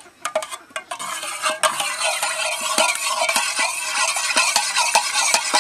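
Egg and milk being beaten in an aluminium saucepan with a metal utensil: rapid clicking and scraping of metal against the pan, starting about a second in and going on steadily.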